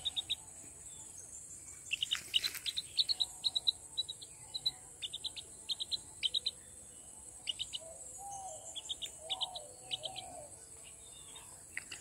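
Red junglefowl chicks peeping: short high cheeps in quick clusters of two to four, repeated through, with a few softer, lower calls between about eight and ten seconds in.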